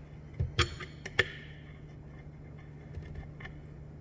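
Light, sharp metallic clicks of a Torx driver and small screws being worked on a Garrett GT17 turbo's cast housing as the T25 screws come out. The two loudest clicks fall within the first second and a half, with a few fainter ticks later, over a steady low hum.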